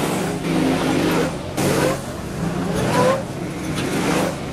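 Hire go-kart engines revving as karts pass close by one after another, the pitch rising as they accelerate. The loudest pass comes about one and a half seconds in.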